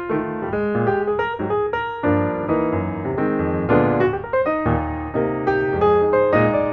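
Piano music: a quick line of single notes, joined by fuller chords about two seconds in.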